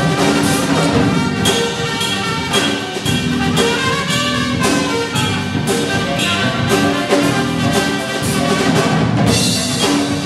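Jazz big band playing live: brass and saxophones over a drum kit beat, with steady, full ensemble sound.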